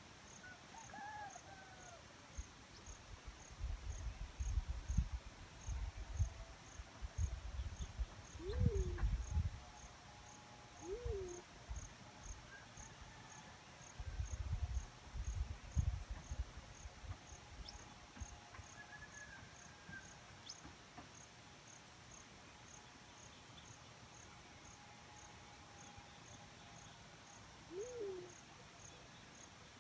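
Black-chinned fruit dove giving short low coos, three times, each rising then falling. Behind it a cricket chirps in a steady high pulse, with low rumbling bursts that come and go.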